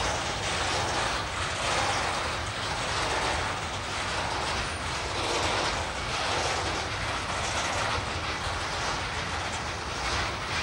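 Siemens Smartron electric locomotive going by under power with a container freight train, a steady hum with wheels rumbling on the rails.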